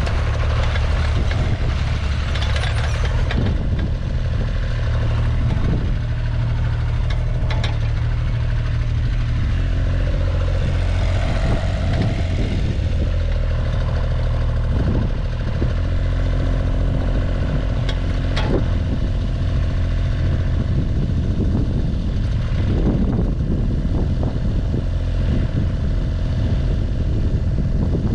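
JCB 8016 mini excavator's diesel engine running steadily while its hydraulics work the slew, boom and dipper, with a whine whose pitch shifts as the controls are moved and a few sharp knocks from the bucket linkage.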